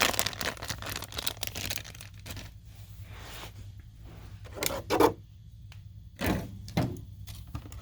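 Plastic packaging rustling and crinkling, with light clicks and knocks from small plastic parts, as a boxed remote-control toy car is unpacked by hand.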